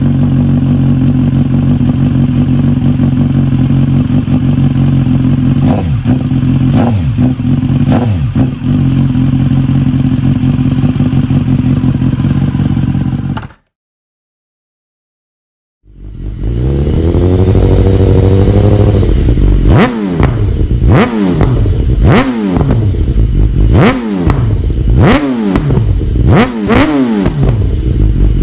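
BMW S 1000 R inline-four with an SC Project S1 slip-on exhaust, idling steadily with a few short throttle blips. It cuts off at about the halfway point. After about two seconds of silence, the same bike with a Yoshimura R77 slip-on idles, rises, then is blipped sharply six or seven times, each rev falling straight back.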